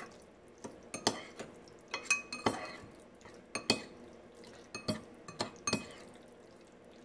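Metal spoon stirring cooked tapioca pearls and sugar in a glass bowl, clinking and scraping against the glass at irregular moments. Some clinks ring briefly.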